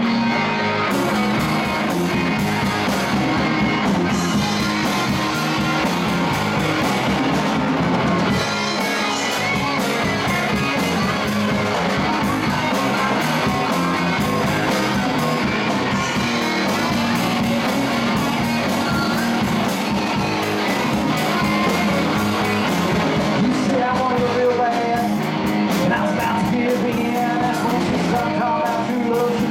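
Live rock band playing loud and steady on two electric guitars, bass guitar and drum kit.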